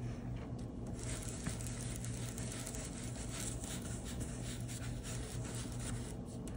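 Ink blending tool dabbing and rubbing ink through a plastic stencil onto cardstock: soft repeated scuffing and tapping, with a low steady hum underneath.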